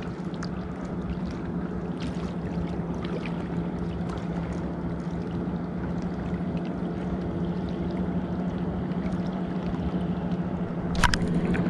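Water lapping against a kayak hull on open water, over a steady low hum, with faint scattered ticks and one sharp click near the end.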